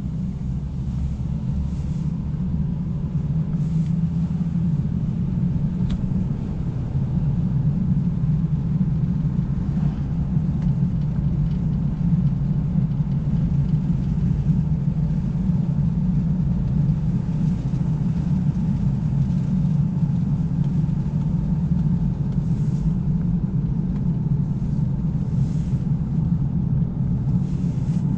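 Car driving on a paved country road: a steady low drone of engine and tyre noise, growing a little louder over the first several seconds.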